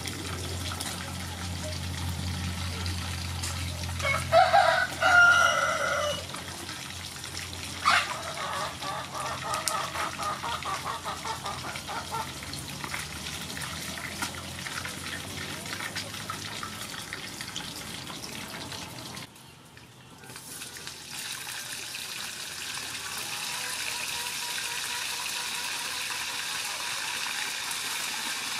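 A rooster crows about four seconds in, followed by clucking. After a break near the middle, a steady sizzle of fish frying in hot oil in a wok takes over.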